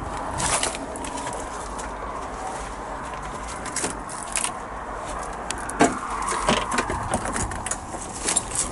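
Birds calling, with scattered sharp clicks and knocks over a steady low rumble; the loudest knock comes about six seconds in.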